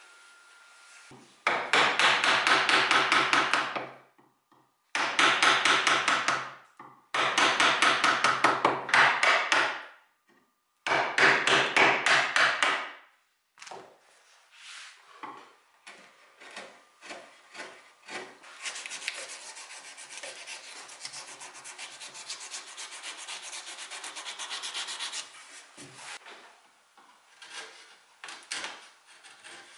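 A wood rasp scraping hardwood in quick strokes to trim a glued-in wooden patch flush, in four loud spells in the first half, then a quieter steady stretch of lighter rasping. Near the end come a few short scrapes of a chisel paring wood.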